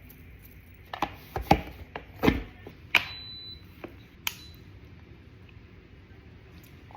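Plastic parts of a Frida Baby humidifier being handled and fitted together: several sharp knocks and clicks. About three seconds in, a click is followed by a short, high electronic beep, then one more click.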